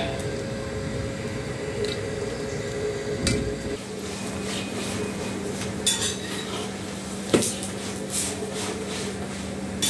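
Metal spoon clinking and scraping on a flat pan as a chapati cooks over a gas burner, with a few sharp taps in the second half.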